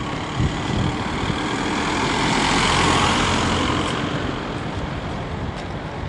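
A car driving past close by: tyre and engine noise rises to a peak about halfway through and then fades, over a low rumble of wind on the microphone.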